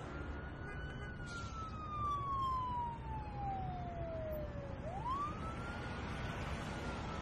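Emergency vehicle siren wailing in slow sweeps: a long fall in pitch, a quick rise about five seconds in, then another slow fall, over a steady low rumble.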